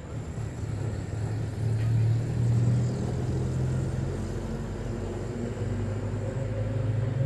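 An engine running with a low, steady drone that grows louder about two seconds in, then holds.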